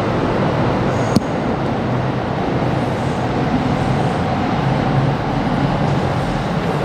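Steady city street traffic noise, with a single sharp click about a second in.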